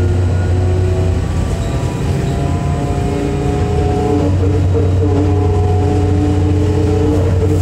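Electric trolleybus under way, heard from inside: a low steady drone with several whining traction-motor tones over it, shifting in pitch as the bus changes speed.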